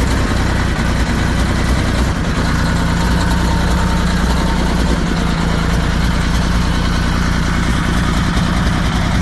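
Detroit Diesel Series 60 inline-six diesel idling rough, loud and steady. The engine is running badly and the owner suspects an exhaust leak.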